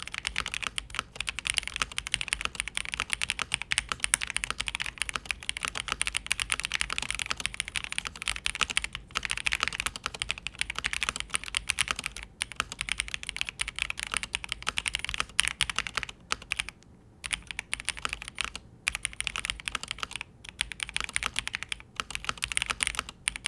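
Melgeek Modern 97 mechanical keyboard being typed on fast and continuously, with a short pause about two-thirds of the way through. The key sound is higher-pitched and poppy, with the echo and reverb held down by the board's internal foam.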